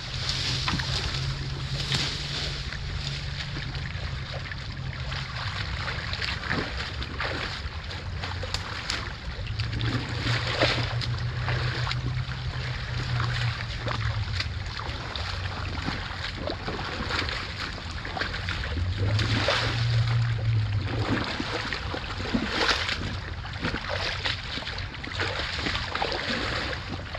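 Rubber boots wading through a shallow creek, the water sloshing and splashing with each step.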